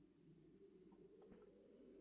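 Near silence: a faint steady low hiss, with a few soft ticks a little after a second in.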